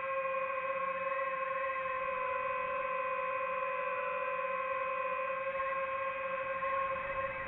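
Steady hum of the DJI FPV drone's motors and propellers in flight, holding one pitch with only a slight waver.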